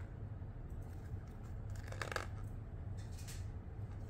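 Paper pages of a model-kit instruction booklet rustling as a hand handles and turns them: two short rustles, about two seconds in and again about a second later, over a steady low hum.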